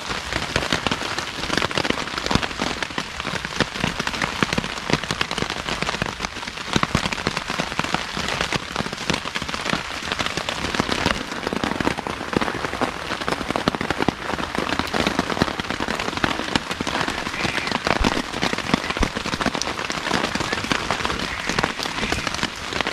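Downpour of rain falling steadily on a camping tarp, with many separate drop hits.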